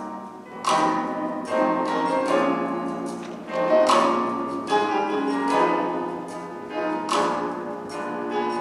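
Instrumental music: struck notes and chords that ring out and fade, a new one roughly every second.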